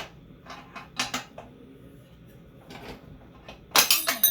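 Hammer striking a metal part on a minibike that is stuck tight: a few separate knocks, then a quick run of loud blows near the end, the last one leaving a high metallic ring.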